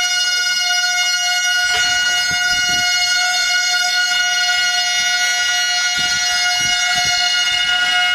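A reed wind instrument holding one high, steady chord as a drone without a break, part of the music of a Buddhist temple service.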